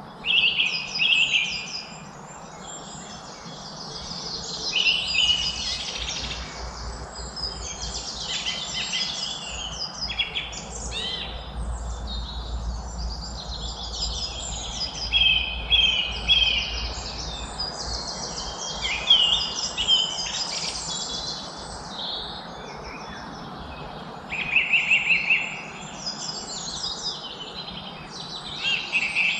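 A chorus of songbirds chirping and singing over one another, with short chirps and quick trilled phrases and several louder bursts. A faint, steady low rumble runs beneath.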